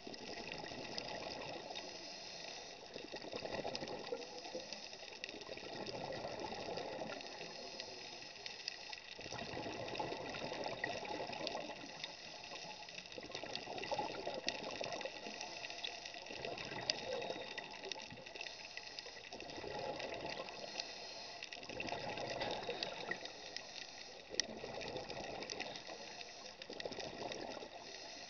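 Scuba diver's regulator breathing heard underwater: exhaled bubbles bubbling in bursts of a couple of seconds, about every three seconds, over a steady hiss.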